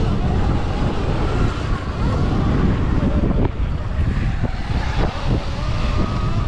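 Wind buffeting the microphone on a stock Sur Ron X electric dirt bike at race speed, a loud steady rumble. Under it, the faint whine of the electric motor rises and falls, with a few knocks in the middle.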